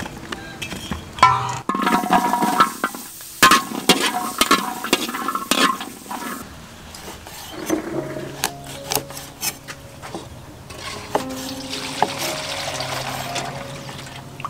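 Cleaver chopping pieces of fermented fish on a thick round wooden chopping block: an irregular run of sharp knocks, loudest and closest together in the first half, fewer and softer later. Soft background music with held notes runs under the second half.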